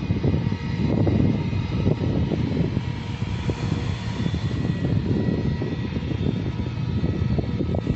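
Jet airliner engines running at a distance: a steady low rumble with thin high whining tones on top.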